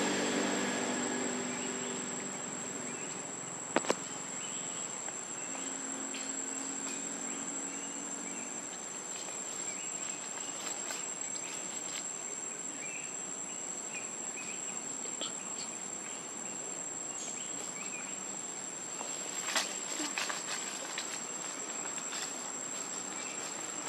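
Steady, high-pitched insect chorus, a continuous shrill drone, with one sharp click about four seconds in and a few short crackles near the end.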